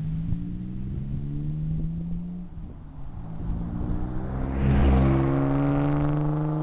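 Ford Mustang 3.8L V6 through a Flowmaster Super 10 Series single-chamber muffler, accelerating hard past, with a gear change about two and a half seconds in. It is loudest about five seconds in as the car goes by, then pulls away still on the throttle.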